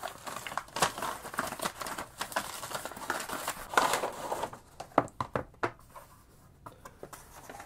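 Stiff white wrapping paper held by melted wax seals being ripped and crinkled open, crackling densely for about four and a half seconds. After that, a few light taps as the cardboard jewellery box is handled.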